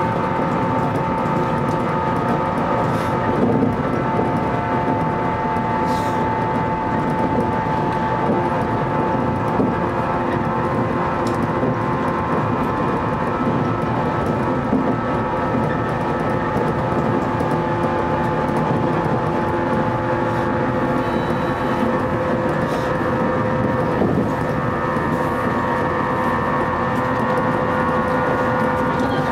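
Electric train running along the track, heard from inside the cab: a steady rolling rumble of wheels on rails with a few steady humming tones from the running gear and faint occasional clicks.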